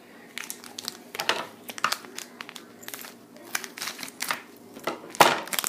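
Blind-bag packet of a K'NEX figure being crinkled and torn open by hand: irregular crackling, with the loudest rustle near the end.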